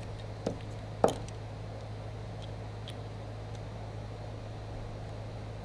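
Two sharp clicks about half a second apart, then a few faint ticks, as a small plastic RC shock and its shock tool are picked up and handled, over a steady low hum.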